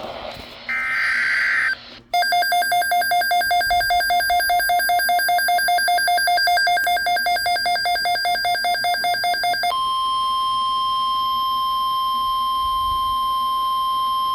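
Emergency alert signalling. About a second in comes a one-second screech of digital header data. Then a harsh beeping alert tone pulses about four times a second. About ten seconds in it gives way to a steady single-pitch tone, the 1050 Hz NOAA Weather Radio warning alarm.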